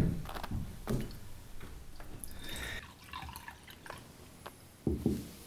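A drink being poured into a cup, a short trickle about two to three seconds in, with a brief low sound near the end.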